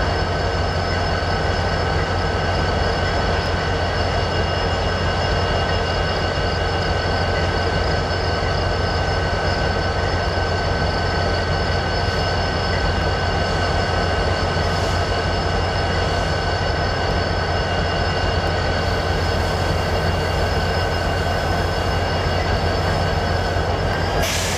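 Norfolk Southern diesel locomotives idling at a standstill: a steady low engine rumble with a steady high whine over it. A brief hiss comes near the end.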